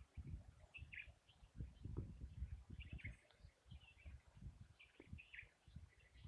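Small birds chirping faintly and intermittently, in short scattered notes. Irregular low rumbles sit underneath and are louder than the birds.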